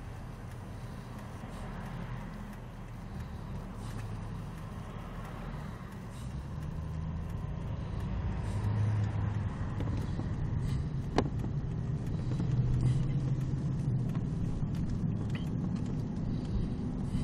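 Road and engine noise heard from inside a moving car: a steady low rumble and hiss that grows louder a little past a third of the way through. A single short click about two-thirds of the way in.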